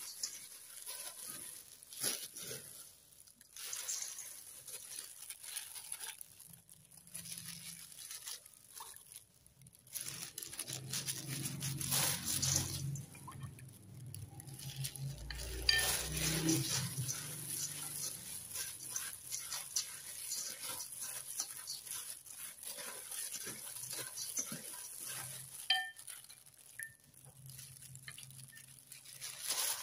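Flattened rice flakes (cốm dẹp) rustling and pattering in a stainless steel bowl as gloved hands toss and mix them with coconut water to soften them. Now and then there is a light clink against the bowl.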